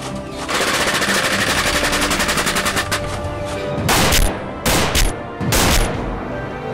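Rapid automatic gunfire, a fast rattle of shots for about two and a half seconds, then three heavy blasts about a second apart, over background music.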